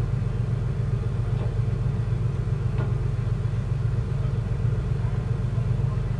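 A purse-seine fishing vessel's diesel engine running with a steady low rumble as the ship gets under way.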